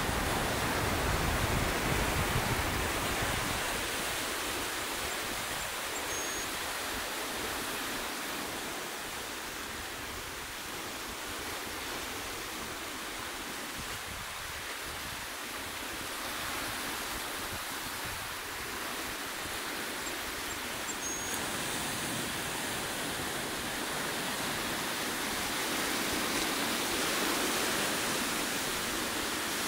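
Ocean surf breaking and washing over a rocky shore: a steady rushing hiss that swells louder in the first few seconds, with a deeper rumble there, and again near the end.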